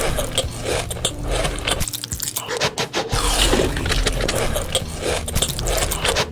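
Loud crinkling and rustling made up of a dense, irregular run of small clicks.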